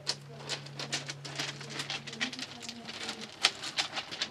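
Irregular crunching steps and scuffs on loose gravel, several a second, over a low steady hum that fades a little past halfway.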